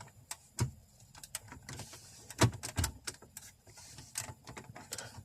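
Irregular plastic clicks and knocks from a car radio unit being handled, connected and pushed back into its dashboard slot, with two louder knocks about two and a half seconds in.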